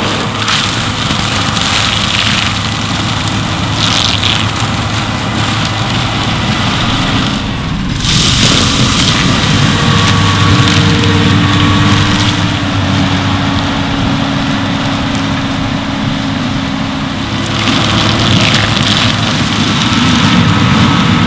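New Holland T7.230 tractor's six-cylinder diesel engine running under load while its front-mounted FAE forestry mulcher's rotor shreds brush and soil. Crackling bursts of woody debris being chewed up come about four seconds in and again near the end.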